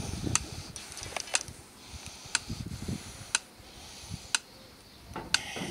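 A sharp tick about once a second, evenly spaced, like a timer counting off seconds, with soft low rustling underneath twice.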